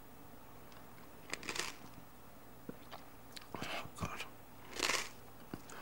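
Soft mouth noises of a person chewing a mouthful of caviar: scattered wet clicks and lip smacks, with a few brief hissy breaths or sniffs between them.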